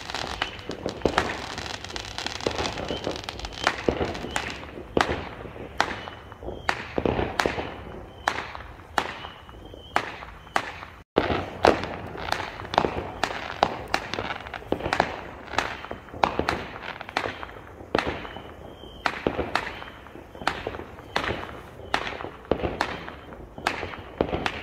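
Neighbourhood fireworks and firecrackers going off: a long run of sharp bangs and crackles at irregular intervals, often several a second.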